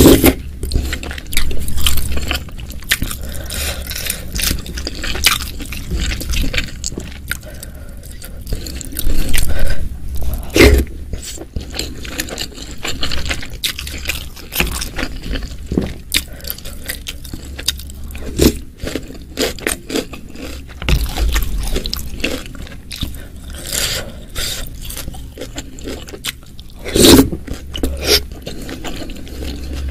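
Close-miked eating sounds: sips and slurps of spicy chili broth from a wooden spoon, wet chewing of meatballs and beef skin (kikil), and the spoon scraping the bowl. The louder slurps come a few times, about ten seconds in and again near the end.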